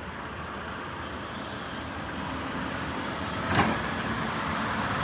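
Deere 210G LC excavator's diesel engine running steadily, slowly getting louder, with one sharp metallic knock about three and a half seconds in.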